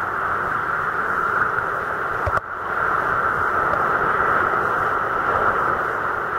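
Sea water sloshing against a waterproof camera held at the water's surface: a steady rushing noise that drops out briefly and sharply about two and a half seconds in.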